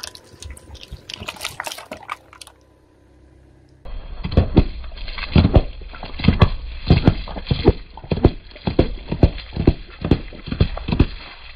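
A car tyre rolling over a row of small drink cartons, bursting them one after another: more than a dozen sharp pops, about two a second, with juice and milk squirting out, over a low rumble. Before that, a couple of seconds of crackling as the tyre crushes thin plastic cups filled with coloured liquid.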